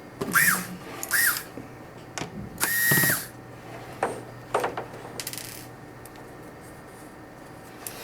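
Cordless power screwdriver run in three short bursts, its motor whine rising and falling with each, the third held about half a second, followed by a few light clicks and knocks.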